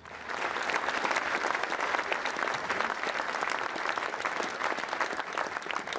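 A large seated audience applauding, a dense steady clatter of many hands clapping that breaks out all at once.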